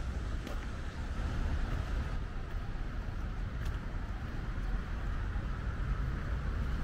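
Wind rumbling on the camera's microphone over a steady outdoor hiss in wet weather, with a few faint clicks.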